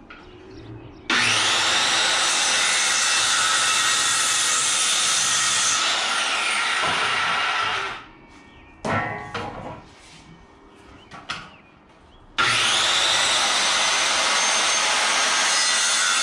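Handheld circular saw spinning up and cutting through a wooden board, then running down. After a few knocks of the board being handled, a second cut starts and runs on.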